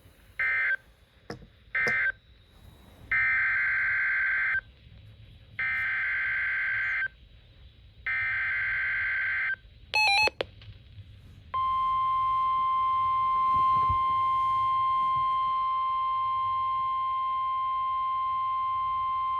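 NOAA Weather Radio alert tones: two short bursts of digital data squawk, then three longer SAME header bursts about 1.5 seconds each, a brief run of rising beeps about ten seconds in, and then the steady 1050 Hz warning alarm tone for about nine seconds, announcing a new warning broadcast.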